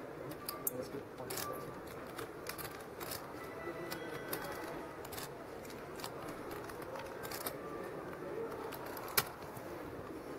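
Irregular sharp clicks of poker chips being handled at the table, one louder click about nine seconds in, over a low murmur of the card room.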